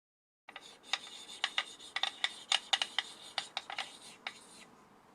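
Handling noise from the camera being set up: irregular sharp clicks and taps over faint rubbing, starting about half a second in and stopping shortly before the end.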